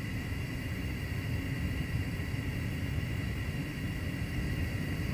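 Gas stove burner flame burning steadily: a continuous flickering low rumble with a hiss over it.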